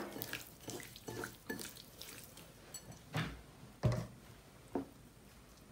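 Soft wet sounds of a hand mixing raw chicken pieces through a vinegar marinade in a ceramic bowl, then a few separate brief soft knocks.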